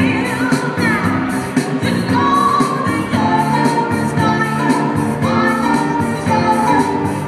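Pop music with singing over a steady beat, playing continuously.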